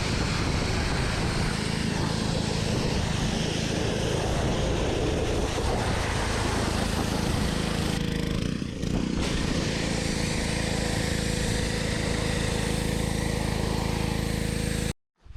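Pressure washer running steadily and spraying water, with a motor hum under the hiss of the spray; it breaks briefly about halfway through and cuts off suddenly near the end.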